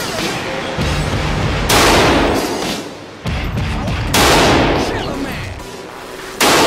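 AK-47 rifle fired single shots, three of them about two and a half seconds apart. Each shot echoes and dies away through the reverberant indoor range.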